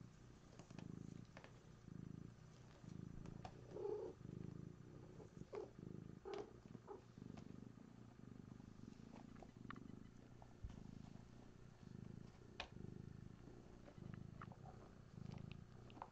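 Domestic cat purring, a low rumble that pulses in and out with each breath, with a few faint clicks on top.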